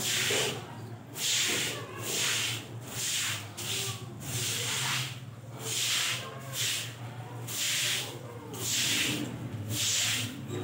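Straw broom sweeping a wet concrete floor: a steady rhythm of swishing strokes, about one and a half a second.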